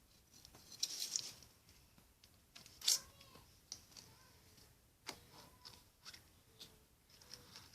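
Opening a Kinder Surprise egg by hand: faint rustling with scattered small clicks and snaps as the chocolate shell and the plastic capsule inside are broken open, the sharpest snap about three seconds in.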